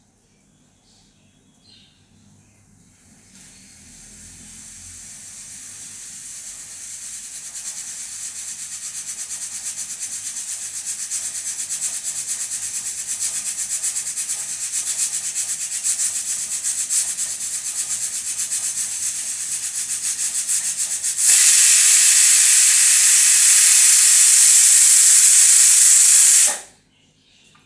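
Pressure cooker whistle: steam hiss from the weight valve grows steadily for several seconds with a fast flutter. After about twenty seconds it jumps to a loud full whistle of escaping steam, which stops suddenly about five seconds later. This is one of the whistles counted to time the cooking.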